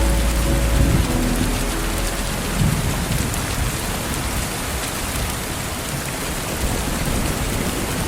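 Steady rain falling, an even hiss throughout, with a low rumble of thunder swelling about two and a half seconds in. A lofi music track cuts out about a second in.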